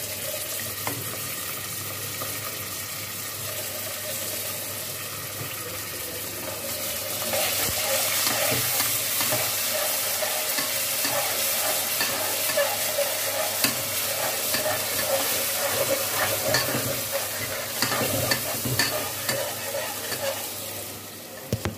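Sliced onions and ginger-garlic paste sizzling in hot oil in an aluminium pressure cooker, stirred with a slotted metal spatula that scrapes against the pot. The sizzle grows louder about a third of the way in, with frequent scraping clicks from then on.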